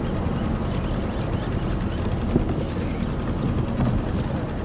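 Boat motor running steadily, mixed with wind buffeting the microphone, and a single sharp click about two and a half seconds in.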